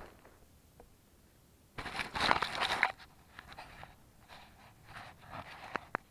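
Handling noise of a camera among leaves and twigs. A loud rustling crunch lasts about a second, starting roughly two seconds in, followed by lighter rustles and a few sharp clicks.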